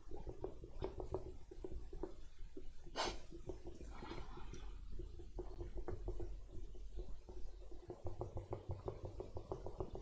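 A duster being scrubbed back and forth over a whiteboard, a quick run of short rubbing strokes, with one sharper swipe about three seconds in.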